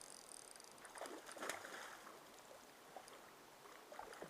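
Faint mountain stream water running over rocks, with a few brief louder splashes about a second in.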